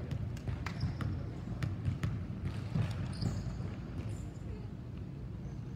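Basketball bounced several times on a hardwood gym floor as a player dribbles before a free throw, a quick run of knocks over the first two and a half seconds. Brief high squeaks follow about three seconds in.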